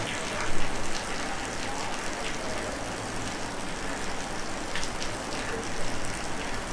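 Steady hiss with a low mains hum, broken by a few sharp clicks and knocks as a CRT television's picture-tube socket board and its wires are handled; the loudest click comes about half a second in.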